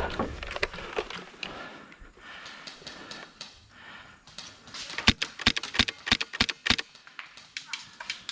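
Airsoft gun firing in semi-auto, a quick string of about ten sharp shots in under two seconds past the middle, with scattered clicks before it.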